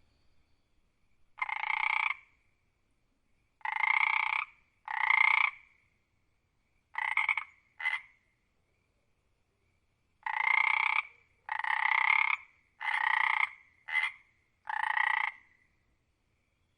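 A frog croaking: about ten croaks, most just under a second long with a couple of short ones, in two runs separated by a pause of about two seconds.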